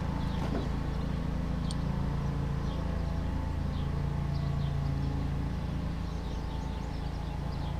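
An engine runs steadily at idle, a low even hum, with faint bird chirps over it and one light click about two seconds in.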